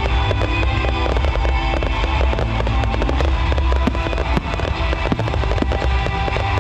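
Aerial fireworks going off in a dense run of crackles and pops, with music that has a heavy bass playing under them.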